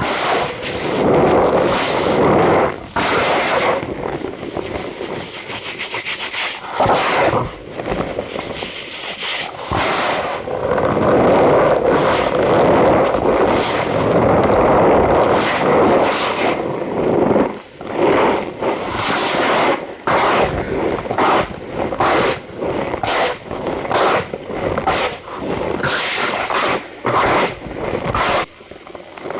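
Cornstarch powder squeezed and pressed by hand, giving a run of crunchy, squeaky squeezes with short breaks between them.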